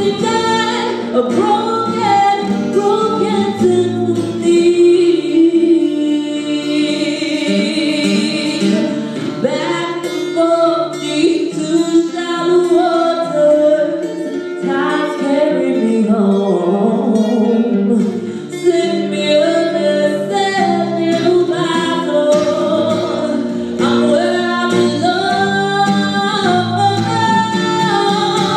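Live acoustic song: a woman singing over a flamenco-style acoustic guitar, strummed and plucked throughout. About seven seconds in she holds a long high note with vibrato.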